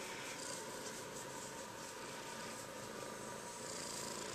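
Black-and-white kitten purring steadily while being stroked, close to the microphone, under a steady hiss.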